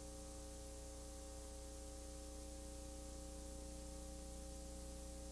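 Faint, steady electrical hum and hiss: a low mains-type hum with a few fixed higher tones over even background hiss, unchanging throughout.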